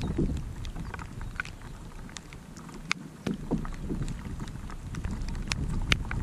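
Wind buffeting the camera microphone with a low rumble that eases briefly around the middle, with irregular sharp ticks of raindrops striking the camera housing, the loudest two near the middle and near the end.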